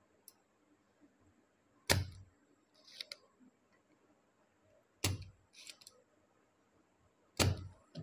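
A spring-loaded desoldering pump fires three times, each a sharp snap as the plunger shoots back and sucks molten solder from a capacitor's pins on a circuit board. Fainter short clicks come between the snaps.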